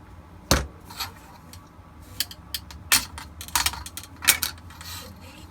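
A string of sharp clicks and knocks from a metal ruler and cutting tool being handled and set down on plastic strips at a workbench.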